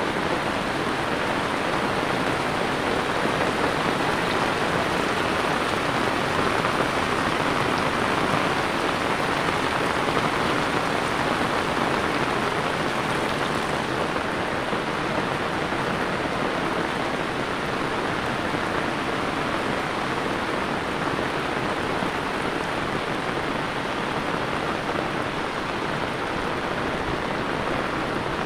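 Heavy rain falling on wet brick paving and puddles, a steady even hiss.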